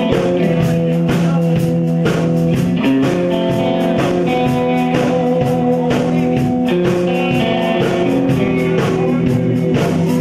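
Live rock and roll band playing an instrumental break: electric guitar lead over drums keeping a steady beat.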